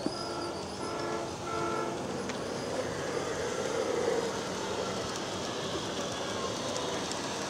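Large-scale garden railway model train's electronic horn giving three short blasts, followed by the steady sound of the train running along the track.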